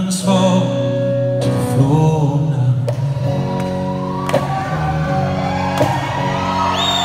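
Live rock band playing through a concert PA: a male lead vocalist sings over electric guitar chords and drums, with the hall's reverberation around it.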